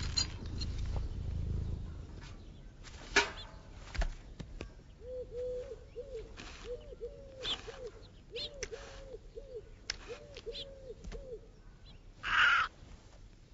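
Owl hooting in quick runs of three or four short hoots at one pitch. Before it come two sharp knocks, and near the end a short loud rushing noise.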